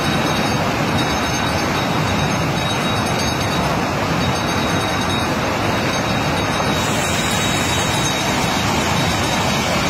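Muddy water gushing out of a large outlet and churning into a concrete channel: a steady rushing noise.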